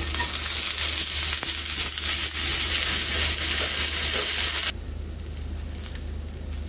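Strips of yacon tipped into a hot Comet solo frying pan and sizzling loudly as they are stirred with tongs. About two-thirds of the way in, the sizzle drops suddenly to a faint hiss.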